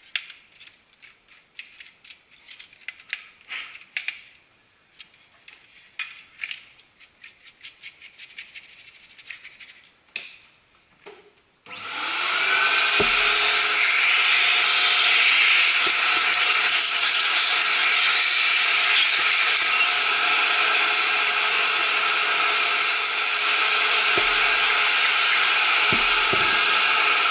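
Light clicks and rubbing of the plastic paper feed unit being handled and wiped. About twelve seconds in, a vacuum cleaner switches on and runs steadily with a whine as its nozzle is worked over the feed unit, with a few knocks.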